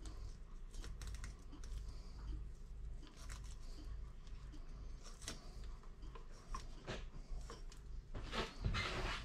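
Fillet knife cutting through a small chain pickerel on a wooden cutting board: scattered light clicks, crackles and scrapes as the blade works along the bones, with a louder stretch near the end.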